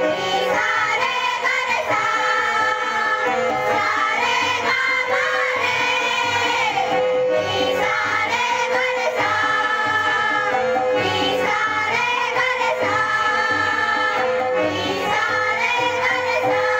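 A group of children singing a song together in unison, amplified through microphones, with a steady held note underneath the voices.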